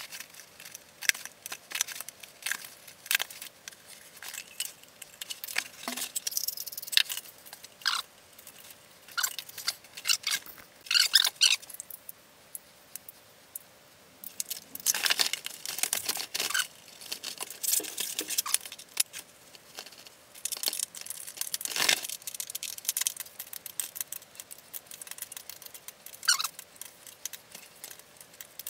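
Crinkling, rustling and tearing of a vinyl shower pan liner being cut and handled, with scattered short clicks and taps from hand tools. There is a quieter stretch just under halfway through.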